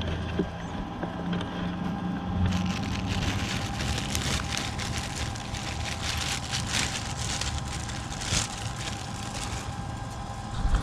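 Plastic packaging crinkling and rustling as a new mower blade spindle is unwrapped, starting about two and a half seconds in and going on in a dense crackle, over a steady low hum.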